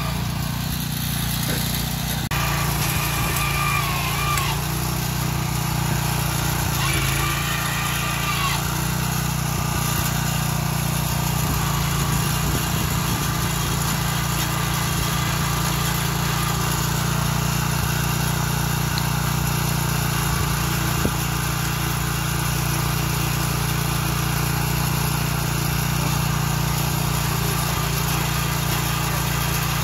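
Small gasoline engine of a portable track-maintenance machine running steadily at a constant speed, with a couple of brief higher whines in the first ten seconds.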